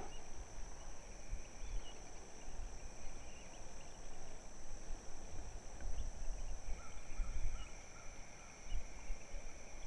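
Outdoor insect chorus: a steady high-pitched buzzing drone, joined by a second, lower steady drone about two-thirds of the way through, with a short run of soft chirps about seven seconds in. An uneven low rumble sits underneath.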